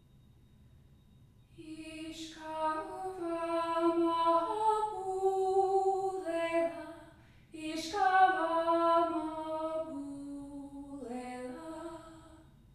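A woman's voice singing two slow unaccompanied phrases, the melody stepping from note to note, with a short break for breath about halfway through.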